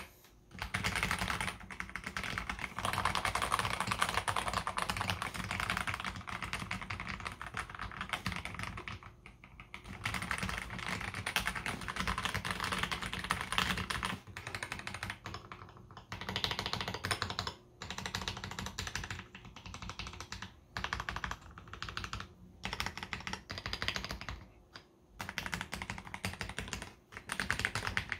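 Fast typing on a KBD67 Lite R3 keyboard fitted with hand-lubed Akko CS Jelly Blue tactile switches. A dense run of keystroke clicks is broken by a few short pauses.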